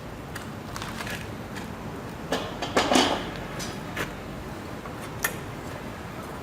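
Scattered light clicks and a brief scrape as copper winding-wire leads are worked by hand into a DC motor armature's commutator risers, with a cluster of clicks about two and a half to three seconds in and single clicks later.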